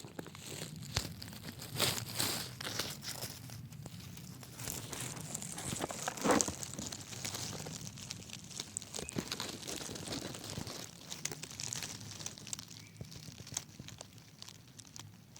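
Crackling and crinkling handling noise from a camera being moved around close to the ground: irregular small clicks and rustles, with louder bursts about two seconds in and about six seconds in.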